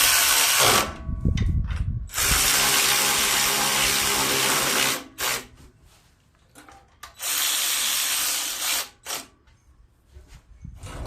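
Cordless power driver running in three bursts, a short one, a long one and a medium one, with a steady motor whine, tightening the 8 mm bolts that hold the engine shroud on a Briggs & Stratton 6 hp engine. There are small handling knocks between the bursts.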